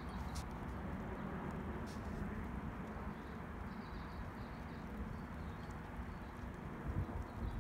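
Steady rain with a few sharp taps of drops, over a low steady rumble.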